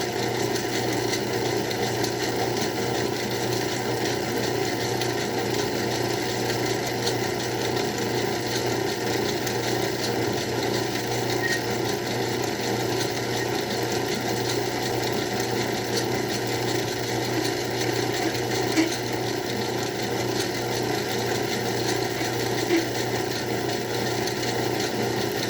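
Craftsman 109 bench lathe running steadily while a drill bit in it cuts through the workpiece, with a constant low hum under the cutting. Two faint ticks come about three-quarters of the way through.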